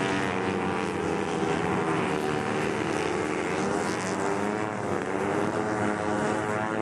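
Speedway motorcycle engine revving on a dirt track, its pitch rising and falling over and over as the throttle is opened and closed.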